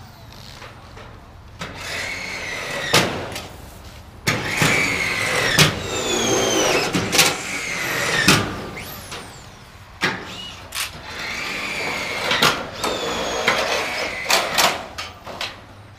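Cordless screw gun driving screws into the sheet-metal trim of a metal carport: several runs, each a high whine that falls in pitch as the screw bites, with sharp metallic knocks in between.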